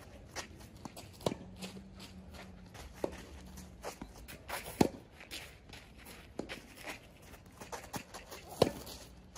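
Tennis rally on a clay court: sharp racket-on-ball hits every couple of seconds, among them slice backhands, with ball bounces and shoes scuffing and sliding on the clay in between.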